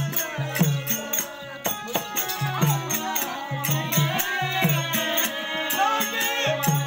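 Live therukoothu folk-theatre music: a hand drum keeping a steady beat under a wavering high melody, with a regular metallic jingle of bells on the beat.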